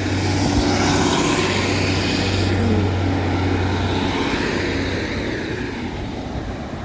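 A heavy diesel vehicle's engine running with a steady low drone. It swells over the first couple of seconds, then fades as the vehicle moves away.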